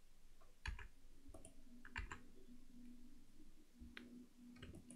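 Faint clicks of a computer mouse and keyboard keys, about five spread through, over a faint low hum that comes and goes.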